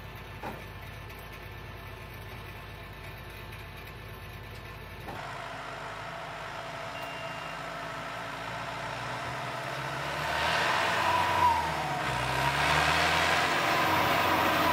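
A quiet steady engine hum with a couple of light clicks, then, after a cut about five seconds in, a New Holland tractor's diesel engine drawing near. It grows louder, its pitch rising and falling.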